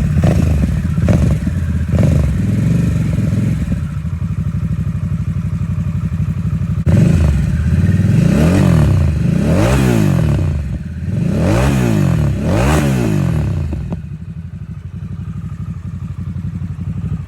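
2022 Harley-Davidson Nightster's Revolution Max V-twin, breathing through an S&S Grand National slip-on muffler, idling with a few quick throttle blips at first. About halfway through it revs up and down four times, then settles back to idle.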